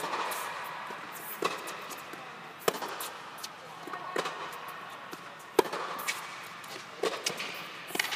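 Tennis rally: racquets strike the ball back and forth, with ball bounces on the hard court, a sharp pock about every second and a half. Each hit echoes briefly inside the tennis dome.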